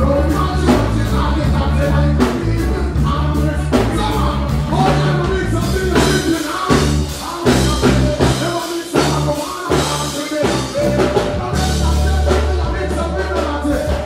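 Dancehall music with a heavy bass line and a vocalist singing over it; the bass drops out briefly past the middle, then returns.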